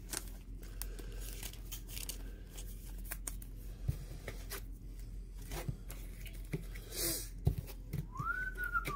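Clear plastic card sleeve rustling and clicking as a trading card is handled and slid into it, with a louder crinkle about seven seconds in. Near the end a short whistled note rises and then holds.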